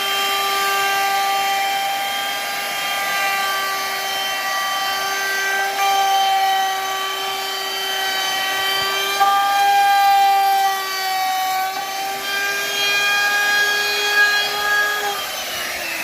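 An electric power tool's motor running with a steady whine while it works wood, its pitch dipping slightly at times. Near the end the whine falls as the motor winds down.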